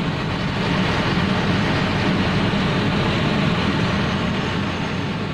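Car engine running, heard inside the cabin, under a steady rushing noise of rain and water as the car moves through a flooded street.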